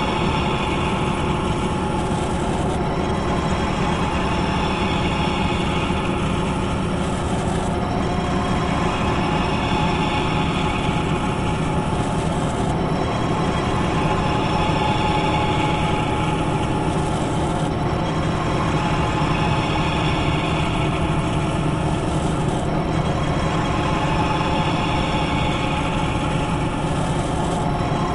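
Machinery running steadily with a low hum and several steady tones. A higher hissing swell rises and falls about every five seconds, giving a regular working cycle.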